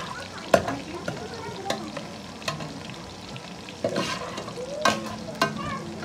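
Sliced onions sizzling in hot oil in an aluminium pot as a metal slotted spoon stirs them, the spoon clinking and scraping against the pot about six times, sharpest about half a second in.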